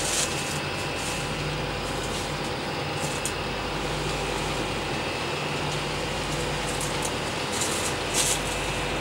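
Steady background noise with a faint low hum, broken by a few brief high hissy bursts near the start, about three seconds in and near the end.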